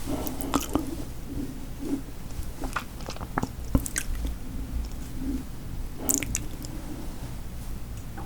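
Close-miked chewing of food, with wet mouth clicks and smacks coming at irregular moments.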